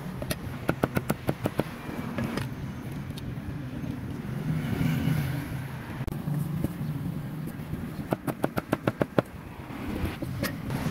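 Steady low street-traffic hum, with two quick runs of sharp knocks, one near the start and one near the end, about five or six knocks a second.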